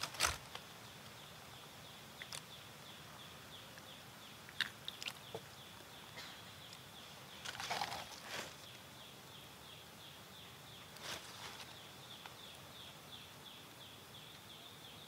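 Forest ambience: a steady, high, pulsing insect call, with a few short sharp clicks or snaps, the loudest right at the start and another cluster about halfway through.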